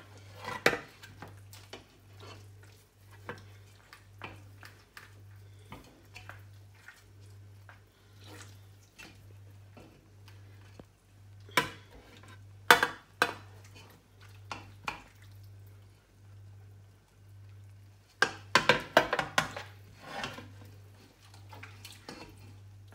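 Scattered clinks, knocks and scrapes of a metal utensil against a pot and a metal roasting tray as cooked meat is lifted out of the pot. The clatter comes in louder clusters about halfway through and again later on.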